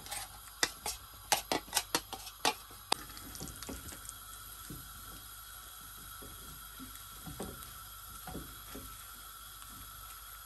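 A grinder jar knocked against a nonstick frying pan about eight times in the first three seconds to empty ground walnut and almond powder into hot ghee, then a spatula stirring the powder with soft scrapes over a steady hiss.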